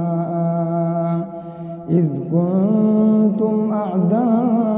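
A man's voice reciting the Quran in a melodic, drawn-out tajweed style. A long held note tails off about a second in, and after a short dip the recitation resumes on a higher, sustained note with wavering ornaments.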